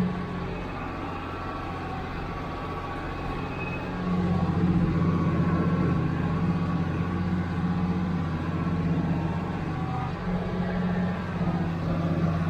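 International Harvester 886 tractor's D-360 six-cylinder diesel running steadily under load, driving a John Deere 335 round baler off the PTO as it picks up hay. The sound drops at the start and comes back louder about four seconds in.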